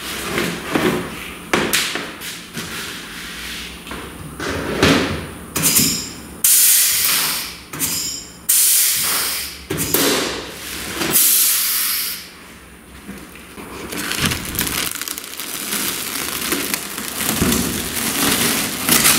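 Plastic protective film crinkling and rustling as it is peeled off a race car's body panels, with a few knocks. In the middle come several loud hissing bursts of compressed air from an air blow gun.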